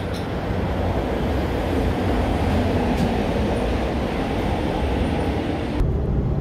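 Steady engine and road noise of a 2013 Toyota Hilux 3.0 turbo-diesel ute, with a low rumble underneath. Near the end the sound changes to the duller rumble heard inside the cab.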